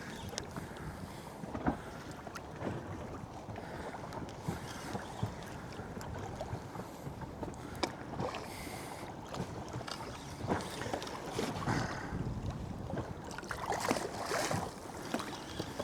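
Wind and water around a fishing boat at sea, with scattered light knocks and clicks.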